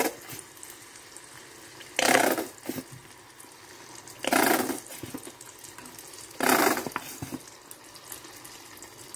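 Plastic squeeze bottle of ketchup squirting into a pan: three short, spluttering squirts about two seconds apart.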